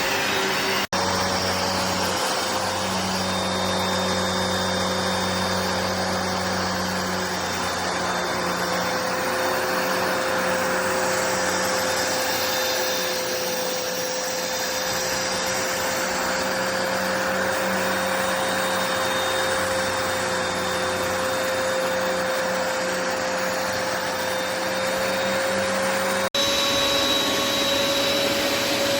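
Hoover PowerDash Pet carpet cleaner running steadily, a vacuum-motor whine with a held tone. The sound breaks off for an instant about a second in and again near the end.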